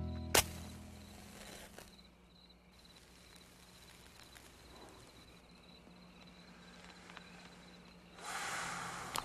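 Film soundtrack: a low sustained music chord fades out, cut by a single sharp hit, then a quiet low drone. About eight seconds in, a burst of breathy hiss.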